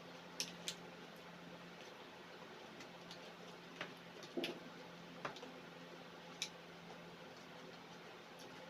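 Eating sounds: a handful of short, sharp clicks and taps from a utensil and food container, spaced irregularly over a faint steady hum.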